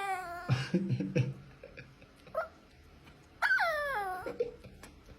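Dog whining in drawn-out cries that slide down in pitch, one at the start and a longer one past the middle, with low grumbling sounds about a second in, a short yip, and a brief high cry near the end.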